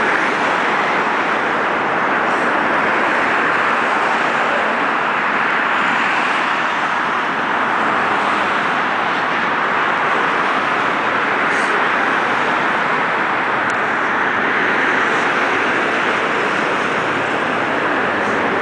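Steady, even rushing noise that holds at the same loudness throughout, with no distinct events in it.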